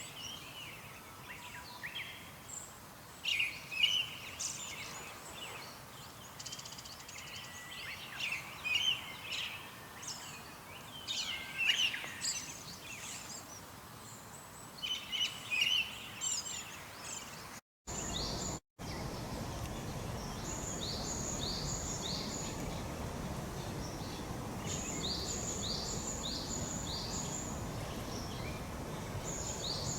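Wild songbird calls: for the first half, scattered high chirps and twitters. After a brief cut, a bird repeats short runs of quick, descending high notes over steady outdoor background noise.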